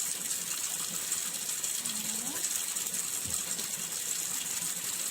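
Kitchen tap running steadily into the sink while glasses are rinsed.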